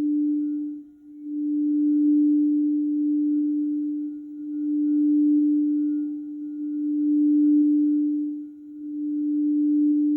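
Quartz crystal singing bowl sounding one sustained, steady low tone with faint higher overtones. The tone swells and fades in slow waves, about every three seconds.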